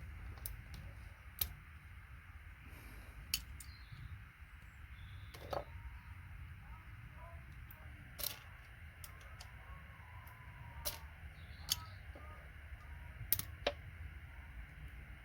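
Irregular sharp clicks and ticks of plastic computer-cable connectors being snapped apart by hand and their gold-plated pins pulled out, over a low steady hum.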